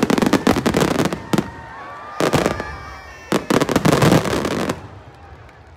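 Fireworks closing barrage: rapid volleys of shell bursts and crackling come in three dense clusters, the last stopping about five seconds in.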